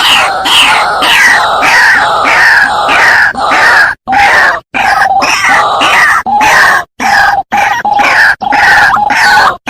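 White-breasted waterhen calling: loud, rapid croaking notes repeated about twice a second, each falling in pitch. The calling is broken by a few sudden short gaps.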